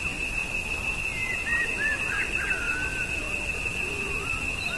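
Multicopter's electric motors and propellers in flight: a steady high whine over a rushing low noise of prop wash. A few short high chirps, like small birds, sound about a second or two in and again near the end.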